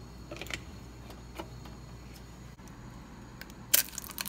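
A few light clicks as the control knob of an electric stove is turned, then near the end one sharp crack as an egg is knocked against the rim of a frying pan.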